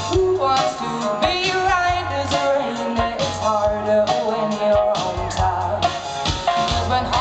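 Live female lead vocal singing a soul-pop song into a microphone, backed by a band with bass, guitar and a steady drum beat, amplified through a concert sound system.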